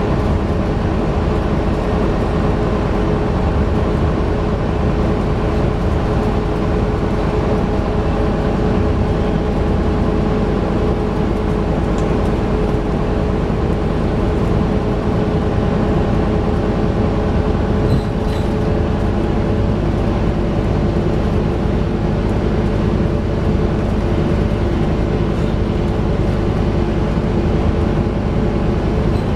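Scania engine of an Alexander Dennis Enviro 400 double-decker bus heard from inside the saloon, running steadily under load at a constant pitch as the bus travels along, with road noise. A couple of light clicks come through partway.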